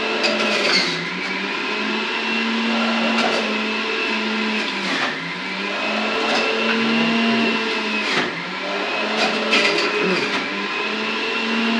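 Electric centrifugal juicer running with a steady whine as tomato pieces are pushed down its feed chute; the motor's pitch sags a few times as it takes the load and recovers, with a few sharp crackles as the fruit is shredded.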